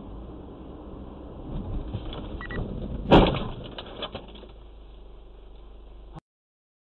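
A car collision heard from inside the car: one loud bang about three seconds in, with a brief crunching rattle after it, over a steady low cabin hum. The sound cuts off suddenly a little after six seconds.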